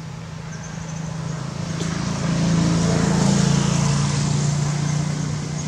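A motor vehicle passing by. Its engine hum swells to a peak about three seconds in and then fades, with a single click near the two-second mark.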